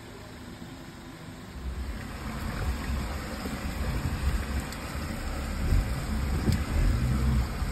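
Heavy rain and a fast-flowing, swollen creek rushing over rocks. About one and a half seconds in, a deep rumble sets in and grows louder.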